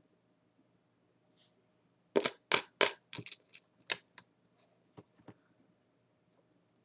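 A run of sharp clicks and knocks close to the microphone, starting about two seconds in: three loud ones in quick succession, then a few fainter taps over the next few seconds.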